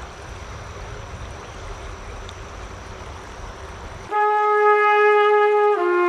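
River water flowing, with low rumble and a faint steady high tone. About four seconds in it cuts off abruptly and background music comes in: held, brass-like notes that step down in pitch near the end.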